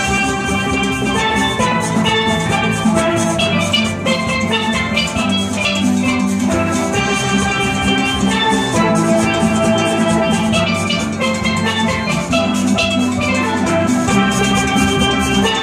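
Steel band playing: many chromed steel pans struck with sticks, their notes sounding together in a continuous rhythmic tune over a steady percussion beat.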